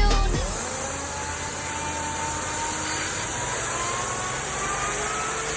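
Hydro jetter sewer-cleaning machine running: a steady engine drone under a strong high hiss of high-pressure water, with a faint tone that climbs slowly in pitch.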